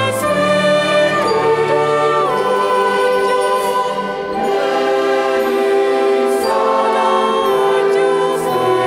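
Choir singing held chords with a small orchestra of bowed strings including cellos, and flutes; the harmony moves to a new chord about four seconds in.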